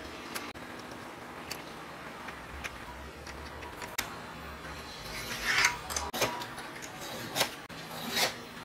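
Light scratching and small clicks of a steel scriber marking a mild steel plate, then several short, louder metal-on-metal scrapes as a steel rule and the plate are slid and shifted by hand.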